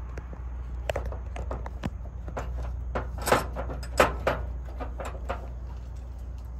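Sharp metallic clicks and knocks of a wrench working the fuel-line fitting on the carburetor of a flathead six. There are about a dozen ticks, the loudest a little past three and four seconds in, over a steady low hum.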